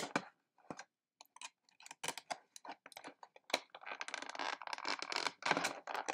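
Plastic wrapping and packing tape being pulled off a boxed figurine: a sharp click at the start, then scattered crinkles and rustles that thicken into a dense crackle about four seconds in.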